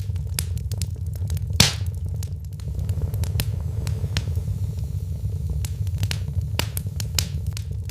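Wood fire burning in a fireplace, crackling with irregular sharp pops over a steady low rumble, one pop louder than the rest about a second and a half in.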